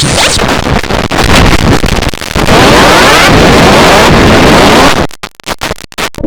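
Very loud, heavily distorted noisy audio with repeated rising sweeps, breaking into rapid stuttering cuts about five seconds in.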